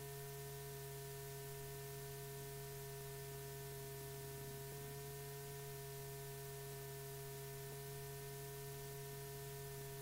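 Steady electrical hum with a few faint higher steady tones over soft hiss: the background noise of an old film soundtrack between lines of narration.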